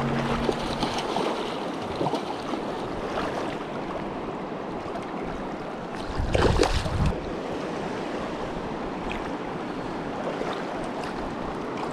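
Shallow, stony river running over its bed: a steady rush of moving water, with wind on the microphone. A brief louder rumble comes about six and a half seconds in.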